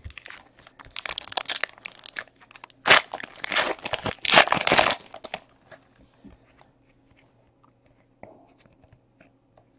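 Shiny foil wrapper of a baseball card pack being torn open and crumpled by hand: a run of crinkling, crackling tears that stops about five seconds in.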